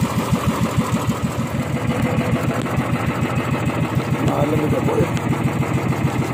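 Small fishing boat's engine chugging steadily, about seven beats a second.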